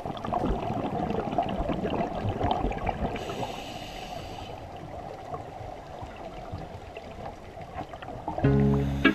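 Muffled underwater sound of scuba divers' exhaled bubbles, crackling and gurgling, with a hiss of about a second and a half near the middle. Music begins near the end.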